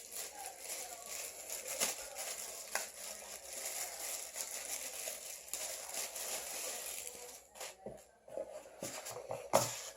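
Packaging being handled: a continuous crinkling and rustling for most of the time, giving way near the end to a few light separate knocks and clicks.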